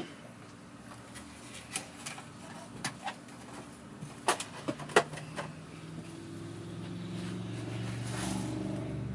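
Scattered sharp clicks and knocks of vacuum cleaner parts being handled, a cluster of them a little before halfway. From about two-thirds of the way in, a low steady hum swells up.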